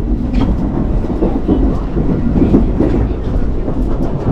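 Shinkansen bullet train running, heard from inside the vestibule between cars: a loud, steady low rumble with scattered short knocks and rattles.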